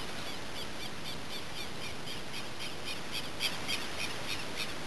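Repeated short, high chirping calls, about four a second, growing a little louder from about three seconds in, over a steady hiss.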